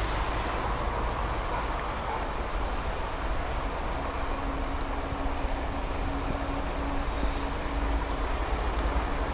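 Class 66 diesel locomotive approaching slowly, its two-stroke V12 engine running as a steady low rumble that grows a little louder; a steady hum comes in about four seconds in.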